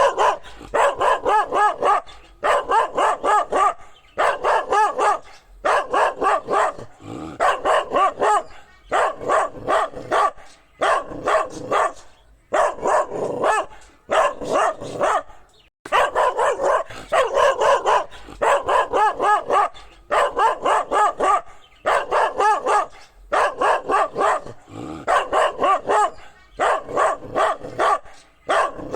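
A dog barking in quick runs of several barks, a new run starting every one to two seconds with short pauses between.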